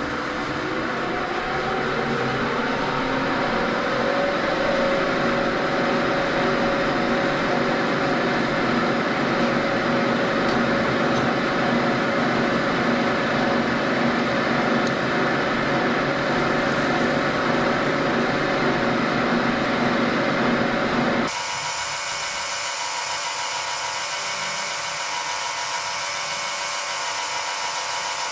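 Vertical milling machine spindle spinning up, its whine rising over the first few seconds, then running steadily as a disc cutter mills flats on the end of a round bar. About 21 seconds in the sound switches abruptly to a thinner, steadier hiss.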